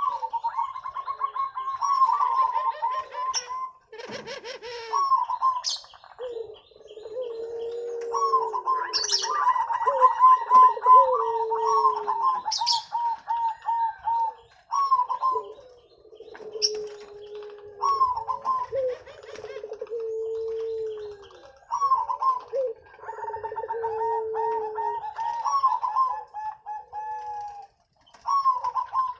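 Zebra doves (perkutut) cooing: several birds calling over one another in repeated rhythmic phrases, one voice higher and one lower, with thin higher chirps above them.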